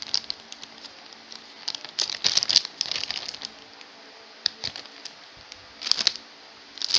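Plastic squishy packaging crinkling as it is handled, in a few short bursts with small clicks between, the loudest about two seconds in and again near six seconds.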